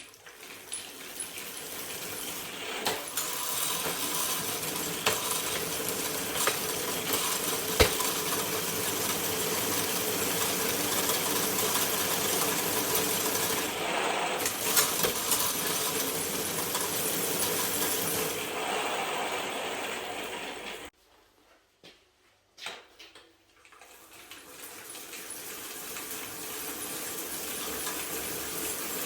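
Washing-machine motor fitted to a bicycle, running with a steady hum and a metallic rattle. It spins up over a few seconds, cuts off suddenly about two-thirds of the way through, then spins up again after a click.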